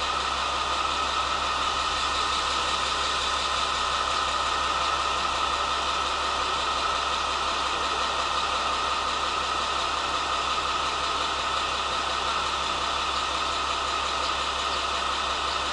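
Diesel engine of a JR West KiHa 47 railcar idling steadily while the train stands at the platform, heard from inside the passenger cabin as an even, unchanging hum.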